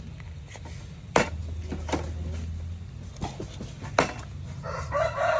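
Two sharp clicks about three seconds apart over a low steady hum, then a rooster begins to crow near the end.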